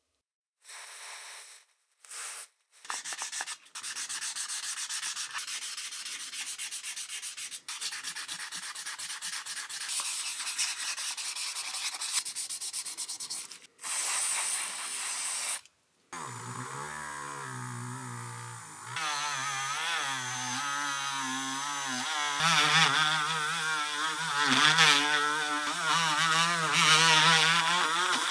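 Abrasive rubbing on a cast aluminium clipper housing, in a few short bursts and then one long stretch. About halfway through, a small high-speed rotary tool with a felt buffing wheel takes over, polishing the housing, its motor whine wavering in pitch as it bears on the metal.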